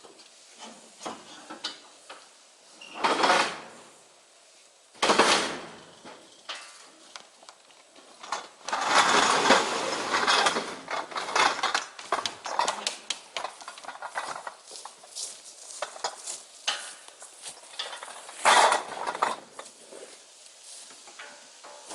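Tent poles clinking and clattering together as they are handled, with intermittent louder rustling and scraping as a tent is pitched.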